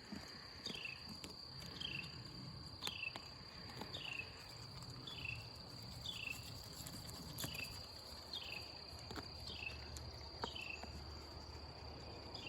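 Insects, crickets or similar, droning steadily at a high pitch. A short falling chirp repeats about every two-thirds of a second.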